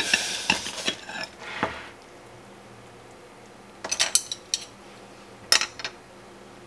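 Ramen and its broth poured from a stainless steel pot into a ceramic bowl, the pot's rim clinking against the bowl, for about the first two seconds. Then two short bursts of light clicks, about four and five and a half seconds in: wooden chopsticks against the bowl.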